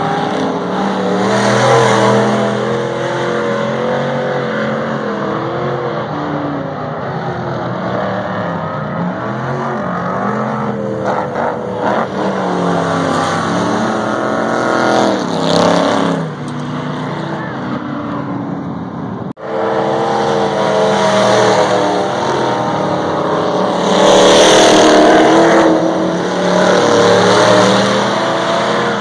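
Dirt-track stock car engines running hard around an oval, their pitch rising and falling as they go through the turns and past. After a sudden break about nineteen seconds in, several cars run together, loudest a few seconds later.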